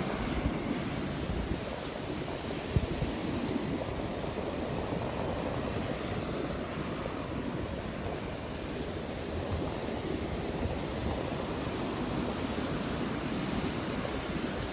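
Rough Gulf surf breaking and washing on the shore, with wind buffeting the microphone in gusts.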